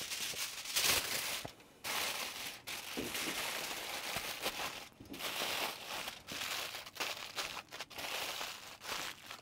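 Aluminium foil crinkling and crumpling as a foil parcel of meat is wrapped in another layer and pressed tight by hand, a run of rustles with short pauses.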